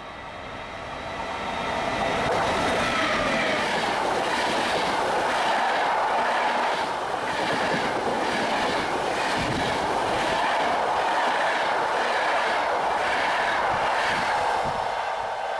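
Passenger train passing through a station at speed. The rumble grows over the first couple of seconds as it approaches, then holds as a steady rush of coaches, with regular clickety-clack beats of the wheels over the rail joints. It eases off near the end.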